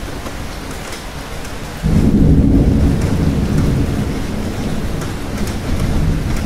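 Steady rain falling, with a low rumble of thunder that breaks in suddenly about two seconds in and continues.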